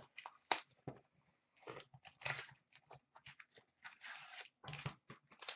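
Hockey card boxes and packs handled by hand: irregular crinkles, rustles and light taps of cardboard and plastic wrap.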